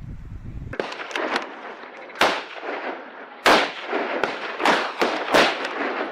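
A string of gunshots from hunters' guns, about ten sharp reports in all, irregularly spaced. The loudest four come roughly a second apart in the second half.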